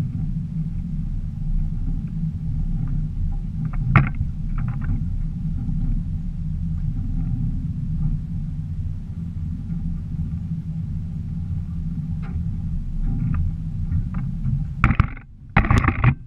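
Small boat's motor running steadily with a low rumble as the boat moves. There is a sharp knock about four seconds in and two loud clattering knocks near the end, as the camera is handled and tipped.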